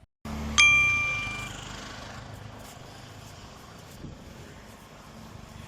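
A single bright bell-like ding, struck sharply and ringing out with several clear tones that fade over about a second, over a brief low hum; a steady hiss follows.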